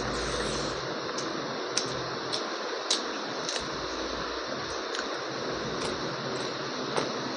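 Someone eating curry and rice: irregular short, wet clicks and smacks of chewing, with the loudest about three seconds in and near the end, over a steady fan-like hiss.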